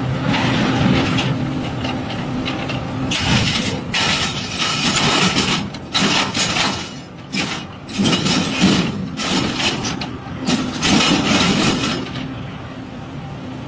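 Excavator's diesel engine running steadily, with five or six loud rushing, clattering bursts of a second or two each as the bucket digs and dumps barge cargo of stone or sand.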